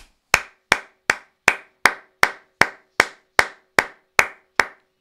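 One person clapping their hands close to the microphone: about thirteen sharp, evenly spaced claps at a steady, measured pace of nearly three a second, stopping shortly before the end.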